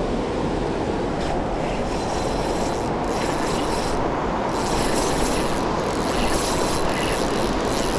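Creek water pouring over a low dam, a steady rushing wash.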